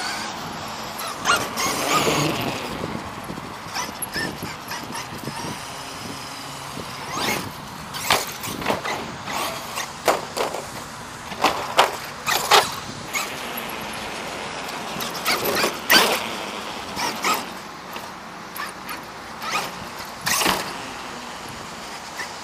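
Traxxas E-Revo 2.0 RC monster truck's electric motor whining as it accelerates, with a string of sharp clacks and thuds as the truck hits, lands on and tumbles over hard skate park ramps.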